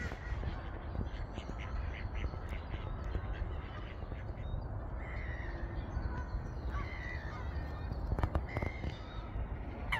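Birds calling around a lake: short scattered calls, more of them in the second half, over a steady low rumble.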